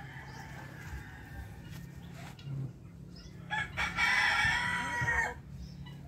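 A rooster crows once: a loud, pitched call starting about three and a half seconds in, lasting about a second and a half, and dropping in pitch as it ends. Quieter hen clucking is heard before it.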